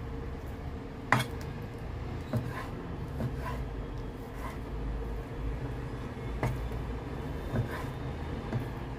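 Cleaver cutting chicken thigh on a wooden chopping board: several separate knocks of the blade hitting the board, about one a second, the loudest about a second in, over a steady low hum.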